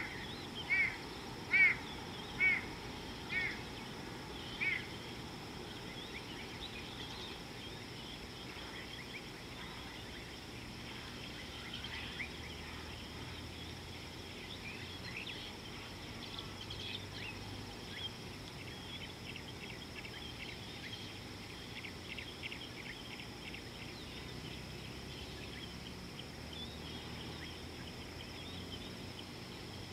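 A bird calling a run of about six loud, evenly spaced notes, fading away after the first five seconds, followed by faint chirping of small birds over a steady outdoor hiss.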